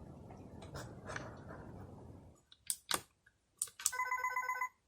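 A few sharp plastic clicks from the Korasyo character alarm clock, then, about a second before the end, its electronic alarm starts: a fast trilling beep, about ten pulses a second, in bursts under a second long.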